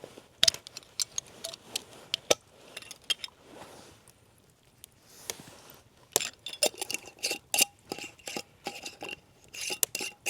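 Scattered clinks and taps of cooking utensils against cookware and dishes, some ringing briefly, coming thicker in the second half.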